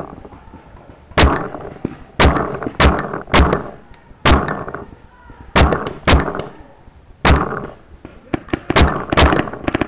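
Paintball marker firing single shots, about a dozen at uneven intervals, several quicker shots near the end, each a sharp crack with a short tail.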